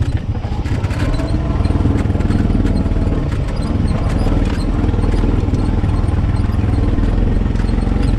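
Honda Pioneer 520 side-by-side's single-cylinder engine running steadily, with light rattles and clicks over it.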